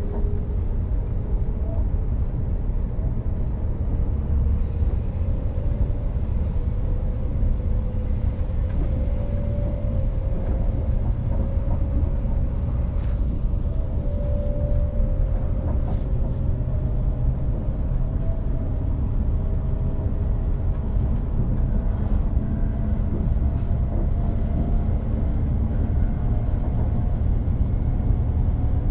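Running sound heard inside a JR West 381 series limited express electric train: a steady low rumble of wheels on rail, with a faint whine that slowly rises in pitch.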